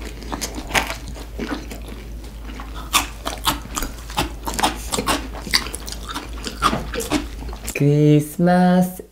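Close-up crunching and chewing as a person bites into crispy-skinned gochu basasak fried chicken, a dense run of sharp crackles. Near the end a voice sings two held notes.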